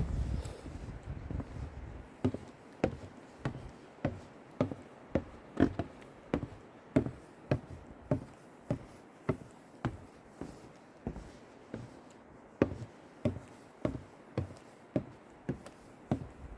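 Footsteps at a steady walking pace, a little under two a second, each step landing as a short knock. A low rumble sits under the first second.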